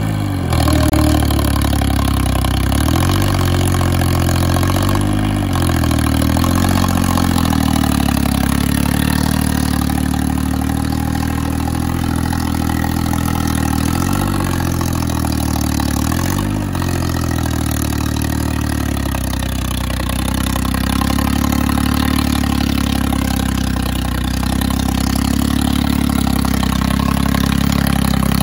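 Farmtrac 60 tractor's diesel engine running steadily under load while pulling a tined cultivator through the soil. Its note dips and recovers a couple of times.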